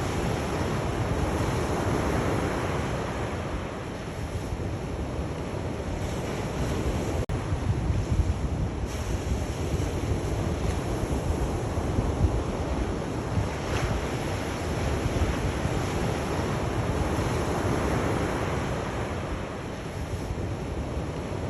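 Sea waves breaking and washing onto a shore, the surf swelling and easing every few seconds, with a low rumble of wind on the microphone.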